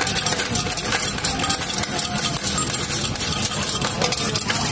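Coins pouring and clattering into a paper cup, many quick metallic clinks, over a steady hum of arcade machines.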